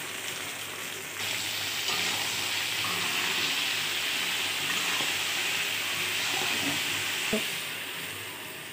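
Chopped wild taro (kochu) stalks sizzling as they fry in oil in a kadhai while being stirred with a spatula. The sizzle grows louder about a second in; near the end there is a single knock and the sizzle fades.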